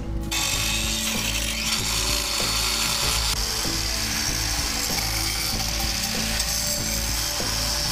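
Small angle grinder with a masonry blade cutting into a cast concrete fountain: a steady grinding hiss.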